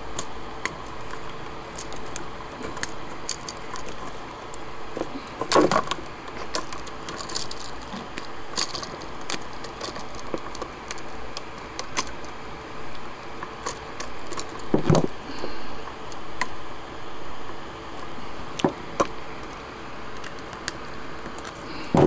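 A wall light switch and its wires being handled over a plastic electrical box while the ground wire is being connected. Scattered small clicks and rattles, with a louder knock every few seconds, over a faint steady hum.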